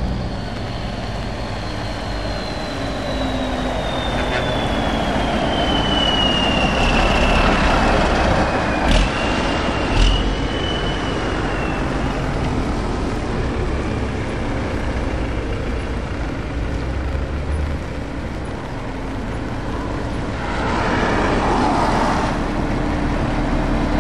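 Lorries and a motorhome driving past on a wet road: diesel engines running with tyres hissing on the wet surface. A high whine falls slowly in pitch over the first nine seconds, two sharp knocks come about a second apart, and a burst of hiss rises near the end.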